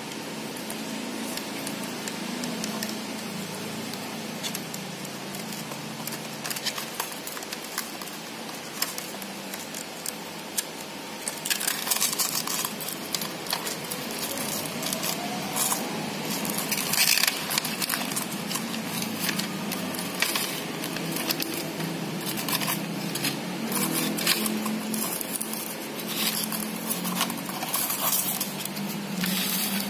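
Packaging being handled and opened: rustling, crackling plastic and light clicks, which start about a third of the way in over a steady background hiss.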